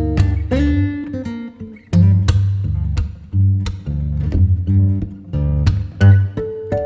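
Background music: an instrumental passage of plucked acoustic guitar over deep, rhythmic bass notes, with no singing.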